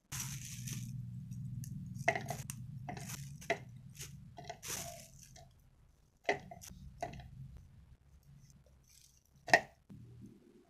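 Kitchen handling sounds: a plastic bag rustling and red chilies and shallots being put into a clear plastic chopper cup, with scattered taps and clicks over a low steady hum. A sharp knock near the end is the loudest.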